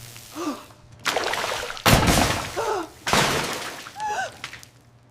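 A series of loud crashes and clatters, three heavy bursts about a second apart, the middle one hitting sharply, with brief wordless vocal sounds in between.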